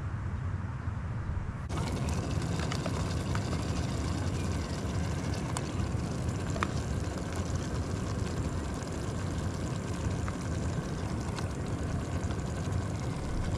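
Steady rumbling wind noise on the microphone, with a few light clicks as mussel shells are dropped into a metal cooking pot.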